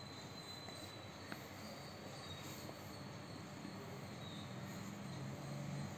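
Faint scratching of a pencil drawing straight lines on paper, with one small tap about a second and a half in.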